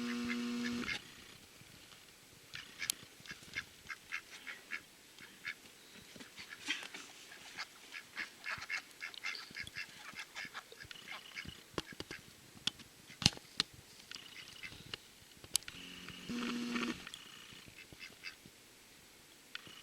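Domestic ducks calling, with many short quacks and chatter scattered throughout. Two longer held calls stand out, one at the start and one about sixteen seconds in.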